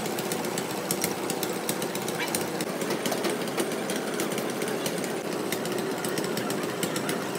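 Steady, rapid mechanical clatter that keeps on without a break, from machinery running in the workshop.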